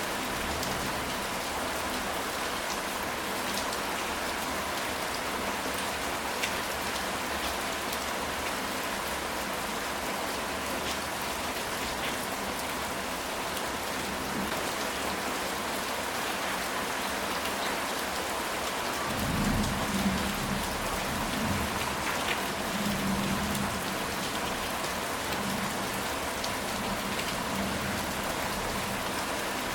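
Steady rain falling on a ceramic tile roof, with fine drop ticks throughout. A low roll of distant thunder rumbles for a few seconds past the middle.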